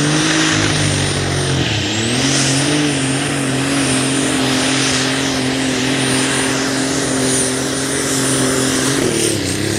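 A methanol-fuelled Super Stock pulling tractor at full throttle, a high turbo whine held above the engine note. The revs dip briefly about two seconds in, then hold steady until the engine note and the whine fall away near the end as the pull ends.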